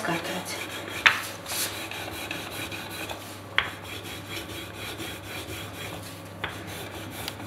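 Wooden rolling pin rolling out crumbly cheese-biscuit dough on a floured countertop: a steady rubbing, rasping sound, with three light clicks about one, three and a half and six and a half seconds in.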